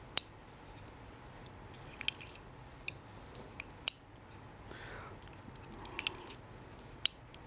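Scattered small metallic clicks from a Heritage Barkeep .22 single-action revolver being handled at half cock, its cylinder turned by hand and its loading gate open, a sharp tick every second or so.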